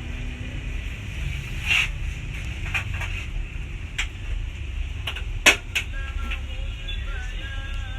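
Scattered sharp clicks and knocks of metal parts being handled and fitted on an oil-filled radiator heater, four of them, the loudest a little past halfway. A steady low rumble runs underneath.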